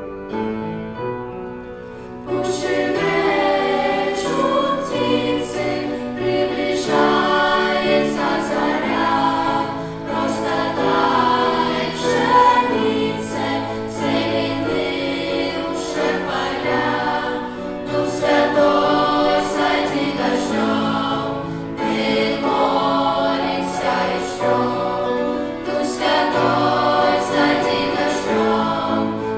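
A children's and youth choir singing a Russian-language worship song in unison, coming in about two seconds in over a keyboard accompaniment.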